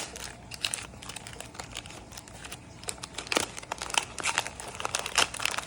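Plastic packaging and toys being handled, making irregular crinkling and clicking, with a few sharper crackles after about three seconds.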